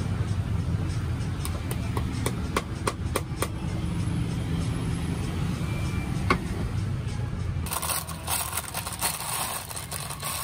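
Knife handle tapping on a halved pomegranate to knock the seeds loose, a run of sharp taps at uneven spacing over a low street rumble. About eight seconds in, the taps give way to a louder, steady hiss.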